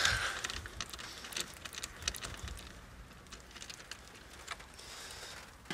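Socket ratchet with a Torx bit clicking faintly and irregularly as a bolt in the engine bay is undone.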